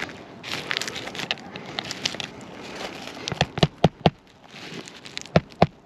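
Stiff asphalt roof shingle crackling as it is handled, then a hammer driving a roofing nail into it with quick sharp blows about four a second: four strikes a little past halfway, and another run starting near the end.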